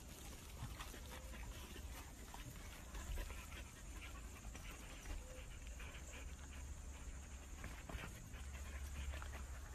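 A dog panting steadily, faint, over a steady low rumble.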